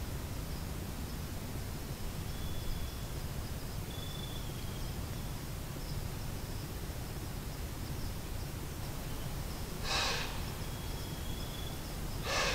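Quiet woodland ambience with a steady low rumble and faint, intermittent high tones, broken twice by a short, sharp sound: once about ten seconds in and again about two and a half seconds later.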